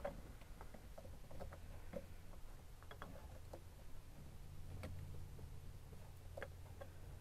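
Light, scattered clicks and taps as a spin-on oil filter is handled by hand at its mount on a jet ski engine. A faint low hum comes in partway through.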